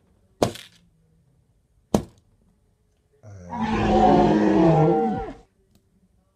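Two sharp knocks about a second and a half apart, then a loud roar given for a toy dinosaur, lasting about two seconds and wavering in pitch.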